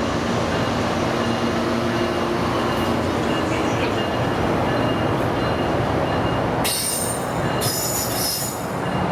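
Train running past on the tracks, a steady loud rumble and rush of noise, with two bursts of high hiss and squeal, each about a second long, near the end.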